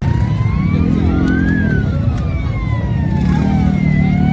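Vehicle siren in a slow wail, its pitch rising for about a second and a half, falling until near the end, then rising again, over the low steady running of a heavy vehicle's engine.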